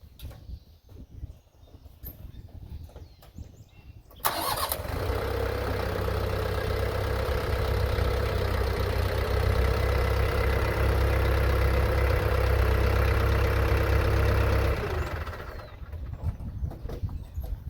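A tractor engine starts suddenly about four seconds in, runs steadily for about ten seconds, then dies away.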